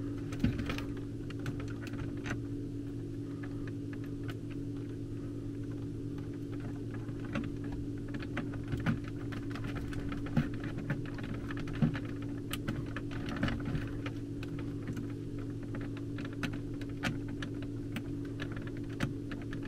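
Scattered light clicks and taps of thermostat wires being handled and fitted into the terminals of a Honeywell HZ322 zone control board, over a steady low hum.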